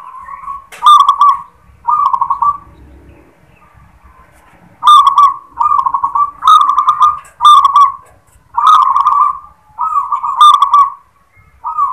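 Zebra dove (perkutut) cooing its song, a string of rolling, trilled coos all at about the same pitch, of the prized local 'klar-ketek-kuk' type that opens on a 'klar' note. Two notes come about a second in, then a pause of about two seconds, then a run of about eight notes.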